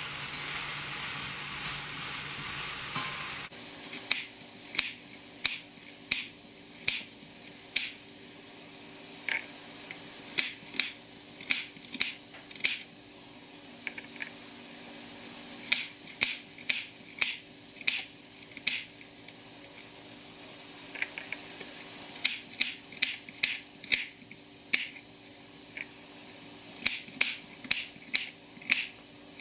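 An even frying hiss for the first three seconds cuts off abruptly. Then a chef's knife slices baby carrots on a cutting board: sharp knocks as the blade strikes the board, one or two a second in short runs with pauses between.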